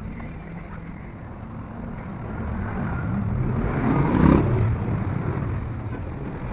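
A motor vehicle rumbling past, growing louder to a peak about four seconds in, then fading.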